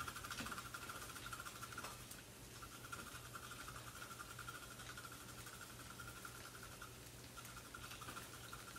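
Celery stalk being shredded in a hand-cranked cone shredder: a faint, steady rubbing with a fine rapid flutter, with short pauses about two seconds in and near seven seconds.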